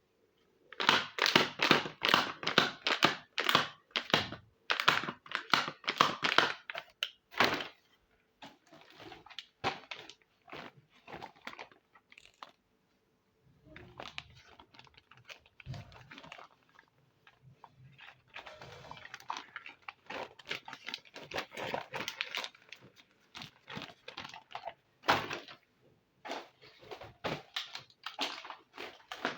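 Miniature plastic toy kitchen pieces and their packaging handled close to the microphone: bursts of crinkling and quick plastic clicks a few seconds long, broken by short pauses.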